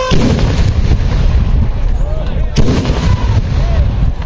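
Cannons firing in a ceremonial firing drill: two sharp blasts about two and a half seconds apart, over a steady low rumble.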